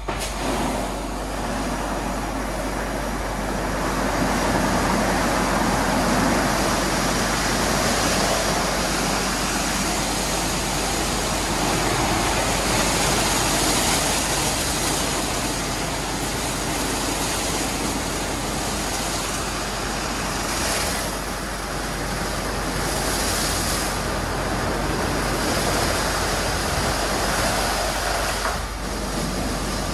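WashTec rollover car-wash gantry running over a car: large rotating brushes scrubbing the body under water spray, together with the gantry's drive, in a dense steady wash noise that swells and eases as the brushes pass, dipping briefly near the end.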